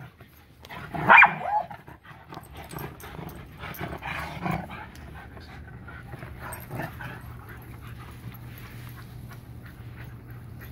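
Dogs playing and chasing: one dog gives a single loud bark about a second in, followed by softer scattered yips and panting.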